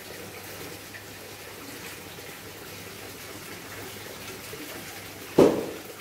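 Small artificial rock waterfall trickling steadily into a garden fish pond. A single loud knock sounds near the end.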